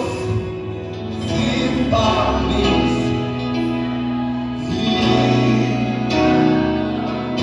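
Gospel song: voices singing together over sustained instrumental chords and a steady bass line.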